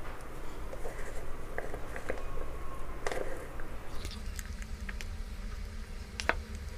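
A metal spoon scooping thick, whipped urad dal batter from a steel bowl and dropping it into a plastic piping bag: soft, wet squishes and plops with a few short clicks.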